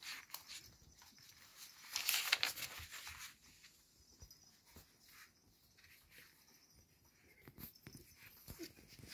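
Cocker spaniel puppies and their mother shifting about on fleece bedding: rustling and scuffling with scattered light clicks, loudest for about a second around two seconds in.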